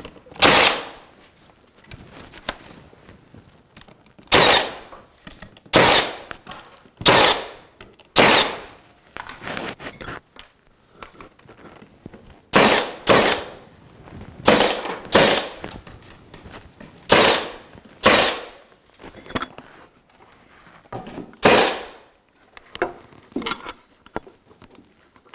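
Nail gun firing repeatedly as nails are shot through flexible crown moulding into the wall: about a dozen sharp shots at irregular intervals, roughly a second or so apart, with a few softer knocks between them.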